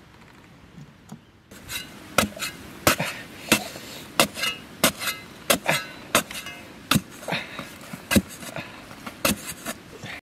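A long-handled metal spade chopping down into hard, dry soil: sharp, repeated strikes about two a second, beginning about a second and a half in.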